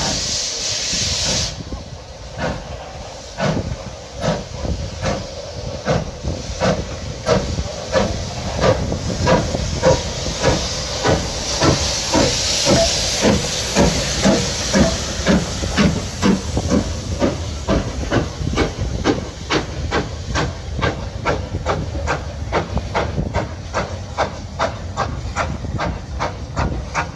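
Caledonian Railway 0-6-0 No. 828 steam locomotive starting away. A loud hiss of steam for the first second or so, then regular exhaust chuffs from about two seconds in that quicken steadily as the train gathers speed.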